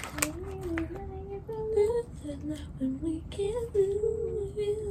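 A girl singing a slow tune to herself, her voice wandering up and down in held notes.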